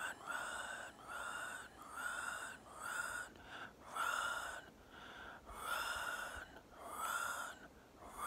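Close-miked whispered singing: a run of about ten drawn-out, breathy syllables, roughly one every second, with no clear words.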